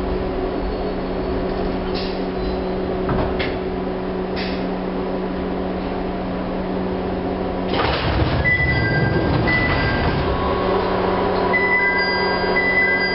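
Interior of a Chichibu Railway 1000 series (ex-JNR 101 series) electric car easing to a stop, with a steady electrical hum and a few light clicks. About eight seconds in the noise rises sharply as the sliding doors open, followed by short high tones.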